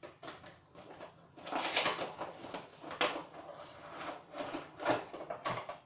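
Cardboard box and plastic packaging being handled and opened: irregular rustling and scraping, with a few sharper knocks about three seconds in and near the end.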